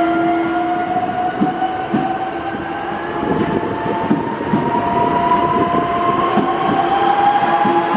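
Newag Impuls 2 electric multiple unit pulling away: its traction drive whines in several tones that rise steadily in pitch as it gathers speed. The wheels click irregularly over the rails underneath.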